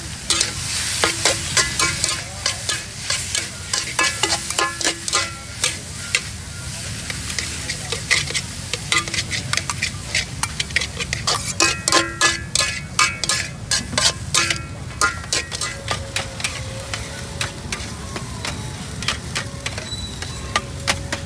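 A metal spatula repeatedly clanging and scraping against a hot metal pan during stir-frying, in quick ringing strokes over the steady sizzle of food frying in oil. The strokes come in busy runs, with the densest about a second in and again around the middle.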